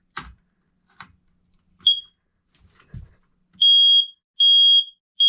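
Smoke alarm sounding under its test button: a brief high chirp, then loud steady high-pitched beeps about half a second long, two in a row and the start of a third near the end. Before it, a few soft knocks.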